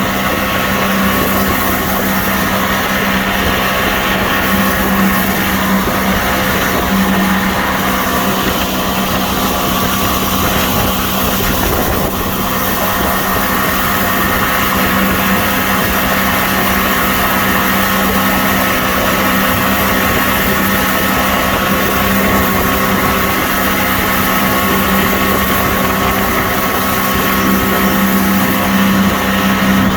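Boat motor running steadily at one constant speed, a continuous hum with a strong low tone that does not rise or fall.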